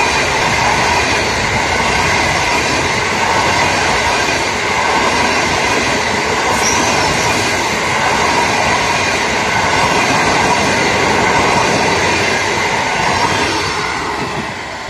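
Passenger train coaches rolling past at close range: a steady, loud rush of steel wheels on the rails. The sound fades near the end as the last coach goes by and the train draws away.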